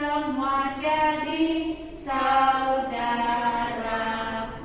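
A slow song sung with long held notes that step from pitch to pitch; one phrase ends and the next begins about two seconds in.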